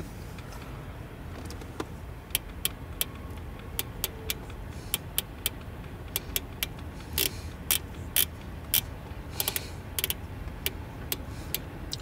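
Channel selector encoder of a Stryker SR955HPC 10-meter radio clicking through its detents as the knob is turned by hand: a string of irregular sharp clicks, starting about two seconds in. A low steady hum sits underneath.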